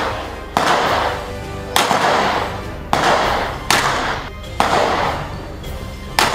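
Ruger Mark II semi-automatic pistol firing .22 LR rounds: six shots at uneven gaps of about a second. Each sharp crack is followed by a long echoing tail.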